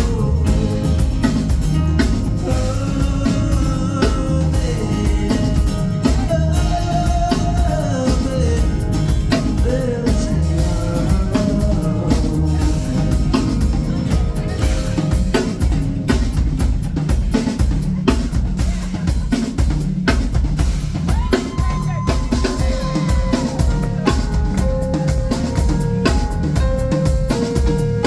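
Live band playing a song: a drum kit with kick and rimshot strokes and a heavy bass under a singing voice.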